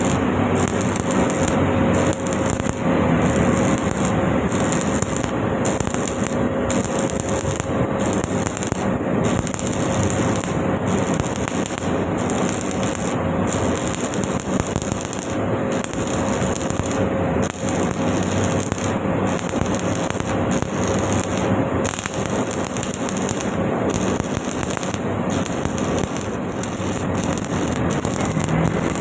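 Stick (SMAW) welding arc crackling steadily as a bead is run, with a steady hum underneath.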